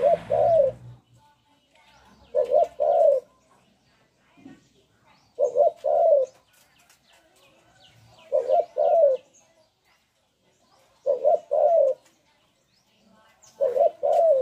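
Caged spotted dove kept as a decoy, cooing a short two-to-three-note phrase about every three seconds, six times.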